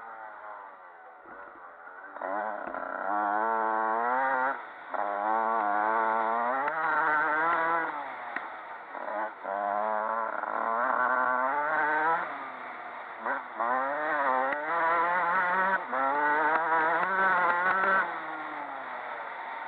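Motocross dirt bike engine ridden hard, revving up and easing off over and over, its pitch wavering as the bike crosses bumps. The throttle comes off briefly about a second in and again several times later, the longest lull near the end.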